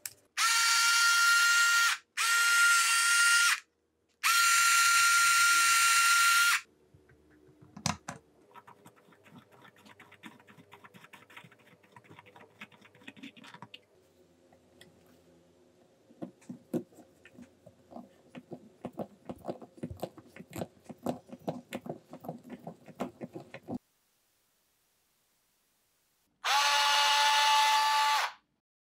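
Cordless electric screwdriver driving small screws into 3D-printed plastic parts, its motor whine coming in three short runs in the first few seconds and once more near the end at a lower pitch. Between the runs, light clicks and taps of small plastic parts being handled and fitted.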